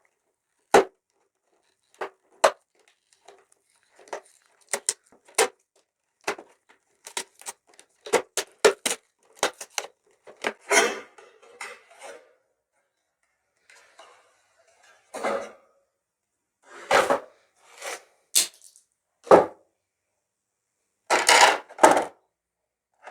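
A charger's retail box being opened and its packaging handled: a run of sharp clicks and taps, broken by several short bursts of rustling.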